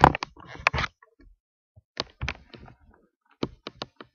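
A voice trails off in the first second, then come a few short knocks and clicks in two small clusters, about two and three and a half seconds in, in a small room.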